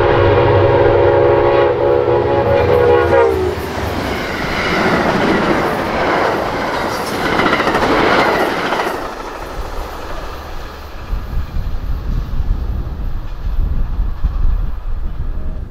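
Amtrak passenger train led by two P32AC-DM diesel locomotives sounding a loud multi-note horn chord for about three seconds, the pitch dropping slightly as it cuts off, then the rush of the train passing at speed, giving way to a lower rumble with irregular clicks of wheels over rail joints as the cars go by.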